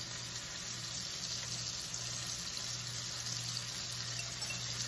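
Beaten eggs sizzling in hot oil in a nonstick frying pan, a steady even hiss, alongside sausage, onions and peppers frying in a second pan.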